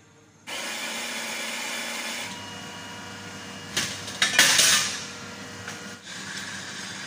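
Baratza Sette 270Wi burr coffee grinder starting suddenly and running. From a couple of seconds in, a quieter steady machine noise carries on, with loud hissing bursts about four seconds in.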